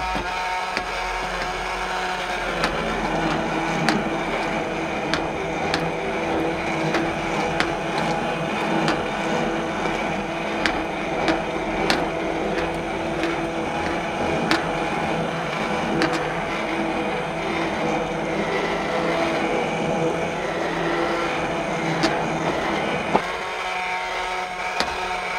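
Hand blender running steadily in a saucepan of cooked marrow, puréeing it into smooth soup. Its motor note drops a couple of seconds in and rises again near the end, with occasional sharp clicks.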